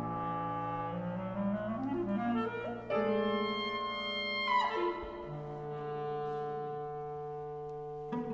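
Contemporary chamber quartet of clarinet, violin, cello and piano playing long sustained clarinet and string notes. A lower line glides slowly upward, and a high note bends downward about halfway through. After that, quieter notes are held.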